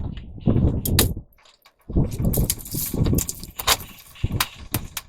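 Irregular thuds, knocks and light metallic clatter from hand demolition work on the boat's wooden structure. There are several heavy bumps with short gaps between them and a brief lull about a second and a half in.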